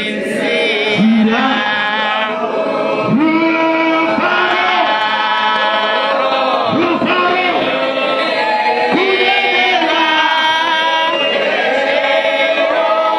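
A man singing a church song through a microphone and PA, with a group of voices singing along in long, drawn-out notes.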